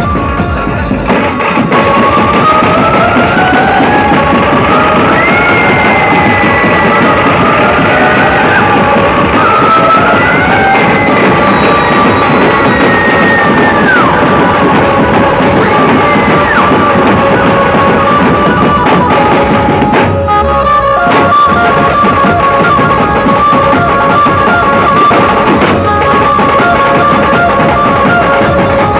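Loud dhumal band music: heavy drums beating steadily under a melody line with sliding notes, with a brief break about twenty seconds in.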